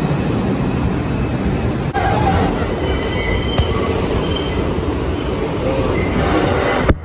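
Subway train running through the station and tunnel with a steady loud rumble of wheels on rail, and faint high-pitched wheel squeals from about two seconds in.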